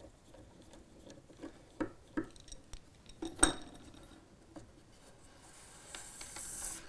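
Light clicks and knocks of a Peco three-way model railway point, its metal rails on plastic sleepers, being handled and lifted off the baseboard. The loudest knock comes about three and a half seconds in, followed by a soft rubbing rustle near the end.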